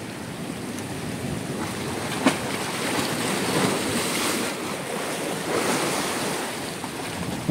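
Sea surf washing and breaking against a rocky volcanic shore, swelling and easing, with wind buffeting the microphone. A short sharp knock about two seconds in.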